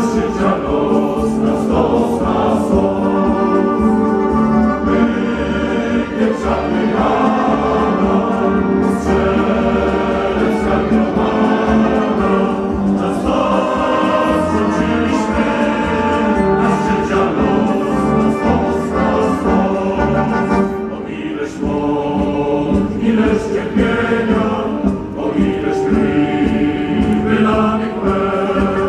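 A large crowd singing a song together, many voices holding long notes.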